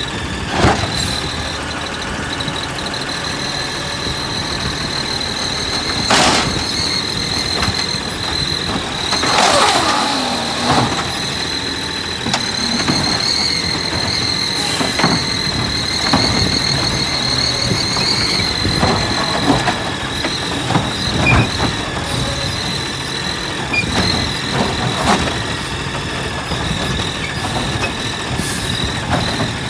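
Natural-gas refuse truck running with a steady high whine, broken every few seconds by sharp metal knocks and clanks. About nine seconds in, a squeal falls in pitch.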